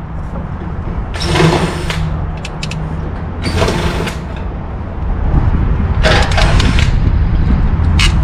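Hand tools working on metal fittings in an aircraft's nose-gear well: three bursts of scraping and clicking, the last and longest near the end, over a steady low hum.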